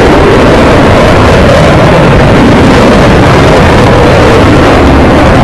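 Jet engine noise from a Blue Angels F/A-18 Hornet in a smoke-trailing climb: a loud, steady rushing noise with a strong mid-low band, recorded near the microphone's limit.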